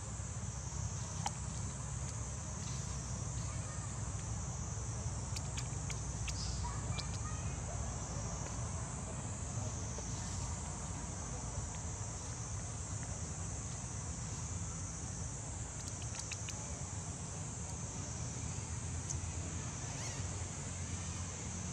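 Insects droning steadily at a high pitch, over a low rumble, with a few faint clicks.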